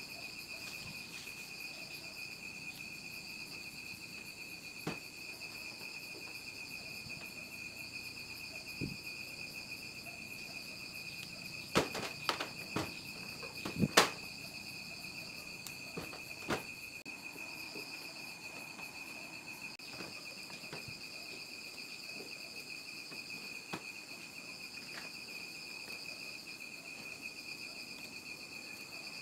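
Crickets trilling steadily in the background, a constant high chirring. Around the middle comes a short cluster of clicks and knocks from a USB cable and tablet being handled, the loudest about halfway through, with a few single clicks elsewhere.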